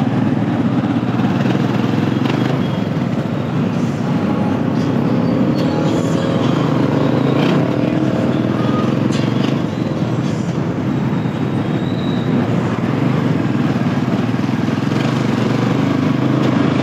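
A motorised tricycle taxi's engine running steadily as it drives through city traffic, heard from inside its open cabin; noisy, with a constant low rumble.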